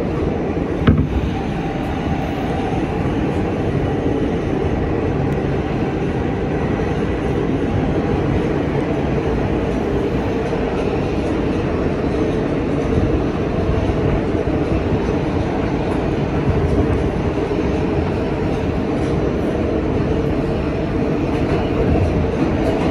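Kawasaki R160B subway car with Siemens propulsion running at steady speed, heard from inside the car: an even rumble of wheels and motors, with a sharp click about a second in.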